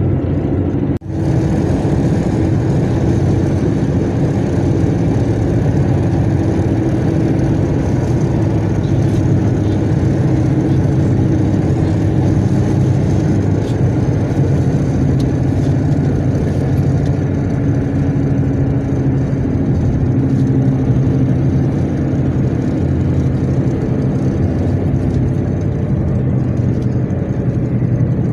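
Car driving along a road: a steady, loud run of engine and tyre noise, cut off for a split second about a second in.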